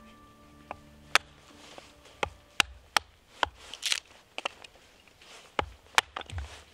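A wooden baton knocking on the spine of an Adventure Sworn Explorer bushcraft knife, driving it down through a short log to split it. About ten sharp, irregular knocks, some close together, as the wood splits.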